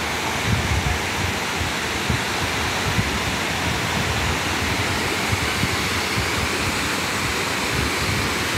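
Steady rushing of a waterfall, water pouring over rock slabs into a pool.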